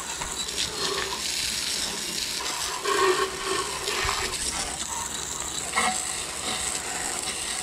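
Water spraying steadily from a hose nozzle and splashing onto a lawn tractor's mower deck, rinsing it off, with a few louder swells as the spray moves.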